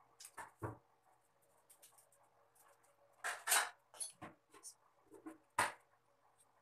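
Soapy wet hands rubbing together, giving soft scattered squelches and rustles. There is a louder wet rub a little past the middle and a brief sharp smack near the end as the hands clasp.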